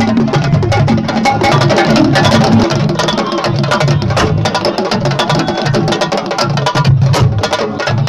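Ensemble of Senegalese sabar drums, played with one stick and one bare hand, beating out a fast, dense rhythm of sharp stick cracks over deeper open drum tones.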